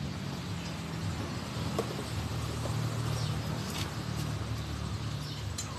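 A steady low engine hum that swells a little in the middle and fades near the end.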